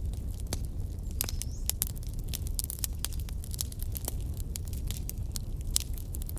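Wood fire burning, with many sharp crackles and pops several times a second over a steady low rumble.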